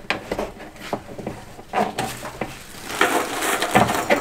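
Hands working at hoses and fittings in a van's engine bay: irregular clicks, small knocks and rustling, with a busier stretch of rustling near the end.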